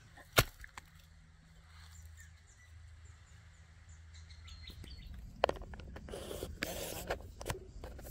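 Faint bird chirps over a quiet outdoor background, with one sharp knock about half a second in. From about five seconds in comes a run of crunching, scraping noises with clicks, louder than the start.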